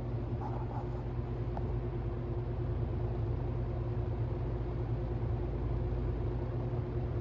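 Vintage General Electric box fan running steadily: an even rush of air over a steady low electric motor hum.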